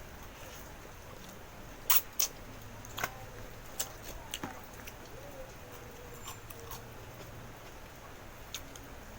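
Close-miked eating sounds: a scatter of sharp mouth clicks and smacks as food is chewed, the loudest pair about two seconds in, then fewer and softer.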